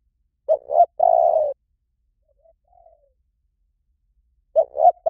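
Spotted dove cooing: two quick short notes then one longer coo, the phrase coming again about four seconds later, with a much fainter short coo in between.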